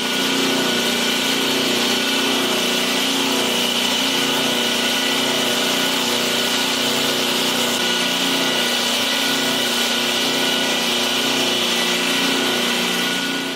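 A small electric power tool running steadily at constant speed, with a steady whine over a noisy hiss, switched on at the start and cut off near the end.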